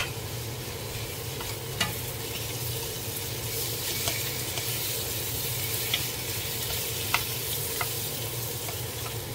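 Zucchini and onion sizzling in a nonstick frying pan while being stir-fried with a wooden spatula, with a few sharp taps of the spatula against the pan.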